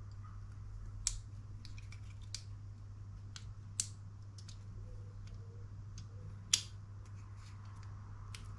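Scattered small clicks and ticks of model-kit parts being handled and fitted together by hand, with about four sharper clicks among them. A low steady hum runs underneath.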